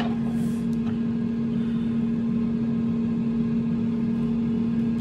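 A steady machine hum with a low rumble under it, from a running motor or appliance. A couple of faint knife taps on a plastic cutting board sound in the first second.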